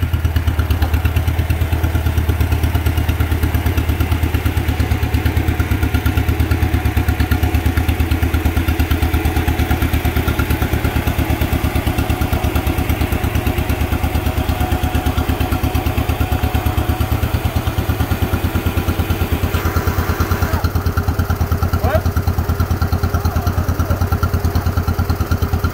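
John Deere tractor engine running with a steady, even chugging beat while towing another tractor.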